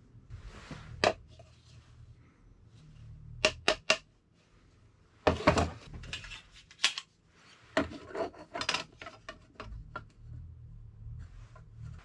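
Tools handled and set down on a wooden workbench: a metal hole saw, a plastic ruler and a metal square clattering in scattered sharp clicks and knocks, with three quick clicks about three and a half seconds in.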